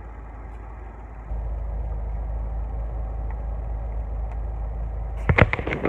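Steady low rumble of a car engine running, stepping up a little louder just over a second in. A few sharp clicks near the end.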